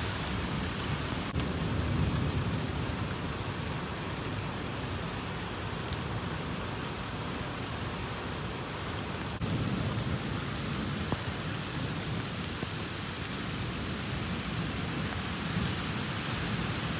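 Steady rain falling, an even hiss with scattered drop ticks, under low rumbling that swells about two seconds in and again about ten seconds in.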